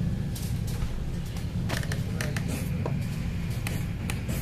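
Steady low drone of a boat's engine heard from inside the wheelhouse, with scattered sharp clicks and rattles over it.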